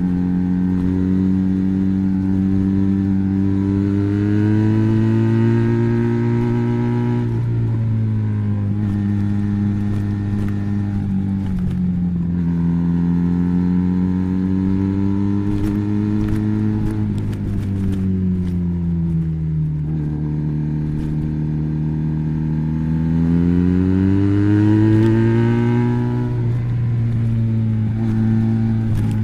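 Benelli BN302's 300 cc parallel-twin engine running through an Arrow exhaust with the dB killer fitted. The engine note rises and falls slowly in pitch several times, each change lasting a few seconds.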